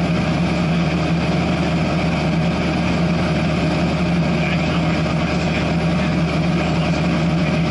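Cessna 172SP's Lycoming IO-360 four-cylinder engine and propeller droning steadily in flight, heard inside the cabin with a hiss of airflow over it.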